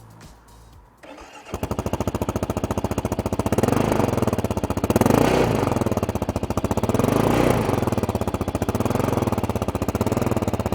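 2022 Kawasaki KLR650's single-cylinder engine starting about a second and a half in and idling through a LeoVince X3 slip-on exhaust, with two short throttle blips that rise and fall.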